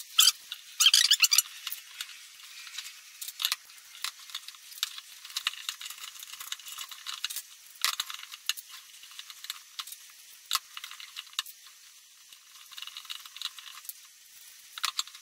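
Light metallic clicking and rattling of steel bicycle spokes and nipples being handled while a wheel is laced by hand. A brief rattle comes about a second in, then scattered single ticks as spokes knock against each other and the rim.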